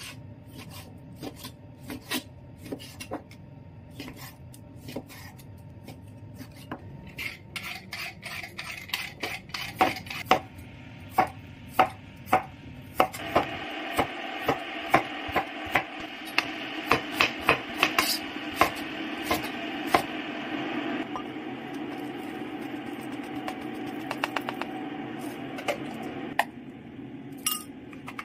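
Kitchen knife cutting raw pork and then potatoes on a cutting board, with a sharp tap each time the blade meets the board. A steady background hiss comes in about halfway.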